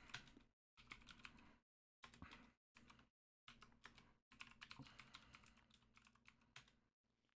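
Faint computer keyboard typing: short runs of keystrokes broken by gaps as a shell command is typed in.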